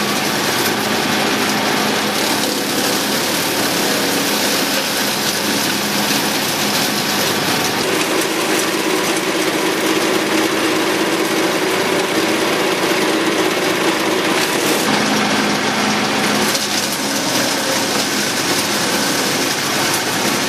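Wood chipper shredder driven by a 13 hp Honda-clone single-cylinder engine, running steadily under power. Its note shifts for several seconds in the middle, around 8 to 15 seconds in, then settles back.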